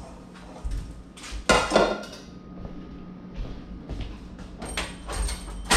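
Metal clinks and clatter as parts of a stove lined with aluminium foil are handled, with the sharpest clanks about a second and a half in and near the end. A faint steady hum runs underneath.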